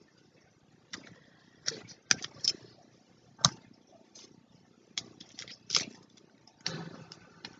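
Scattered clicks and clacks of a plastic case being handled and opened. The case holds a laser pointer with interchangeable heads.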